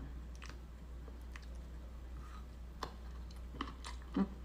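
Faint sounds of a person eating noodles: quiet chewing with a few soft clicks from wooden chopsticks, one a little louder near the end, over a low steady hum.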